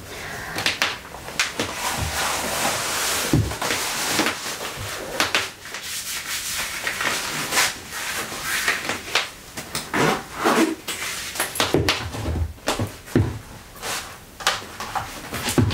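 Leather over-the-knee platform boots being pulled up bare legs: long stretches of leather rubbing against skin, with several knocks as the chunky boots are handled and set down on the wooden floor.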